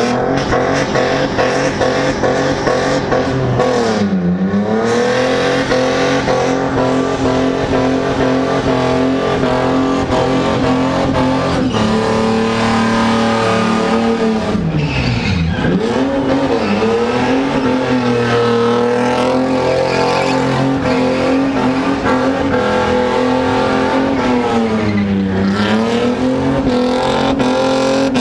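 Holden VN Commodore engine revving hard and held at high revs through a burnout, with the rear tyres spinning on the concrete. The revs drop sharply and climb straight back three times, about 4, 15 and 25 seconds in.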